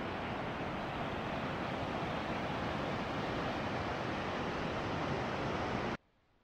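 Rushing river water, a steady even rush that cuts off suddenly near the end.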